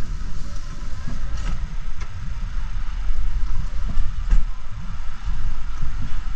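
Mountain coaster sled running along its steel rail track, a steady rough rumble from the wheels with a few sharp clicks and knocks along the way.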